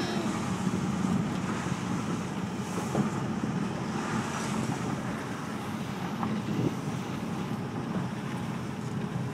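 2004 Corvette Le Mans Commemorative Edition's V8 engine with tyre and wind noise, heard from inside the cabin while driving. The sound is steady and slowly gets quieter.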